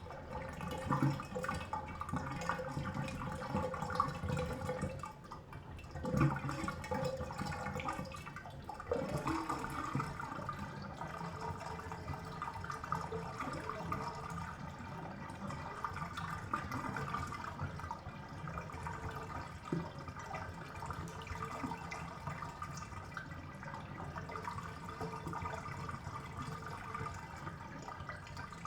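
Bathtub water draining down the plughole: a continuous gurgling swirl with occasional louder glugs as air is drawn into the drain.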